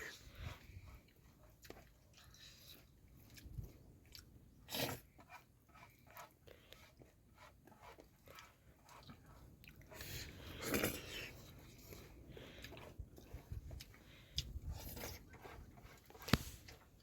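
Someone chewing and crunching food: a string of short, irregular crackles and clicks, with a couple of louder bursts about five and eleven seconds in.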